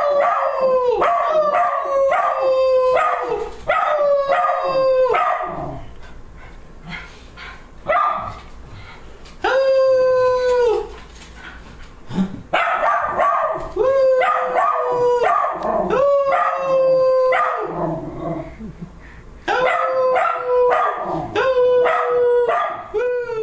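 A small dog howling in a string of drawn-out notes that each hold steady and then drop in pitch, with a man howling along to set it off. There are short quieter pauses between the runs.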